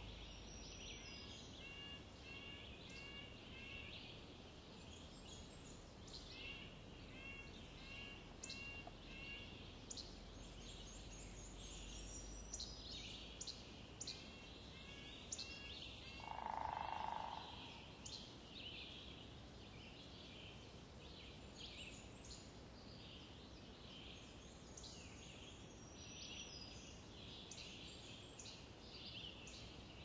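Downy woodpecker drumming once, a rapid roll on wood lasting about a second and a half, roughly halfway through. Around it is a faint dawn forest chorus: runs of short repeated bird calls in the first several seconds, and scattered high chips and song throughout.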